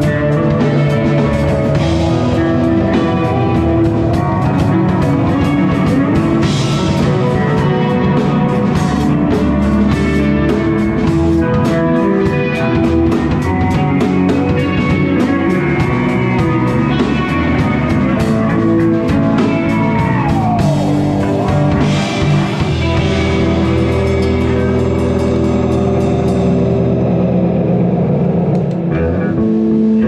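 Live rock band playing an instrumental passage: electric guitars over a drum kit with steady cymbal strikes. In the middle, a long note slides up and then down in pitch, and the cymbals drop out near the end.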